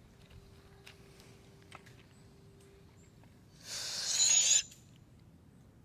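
Air hissing out of the toy car's inflated balloon for about a second, with a thin high whistle in it, about two-thirds of the way in. Before it, a faint steady low tone.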